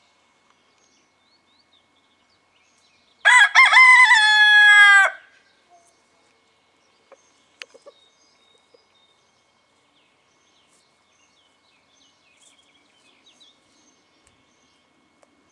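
Cockerel crowing once, about three seconds in: a few short broken notes run into a long held note that drops in pitch at the end, about two seconds in all.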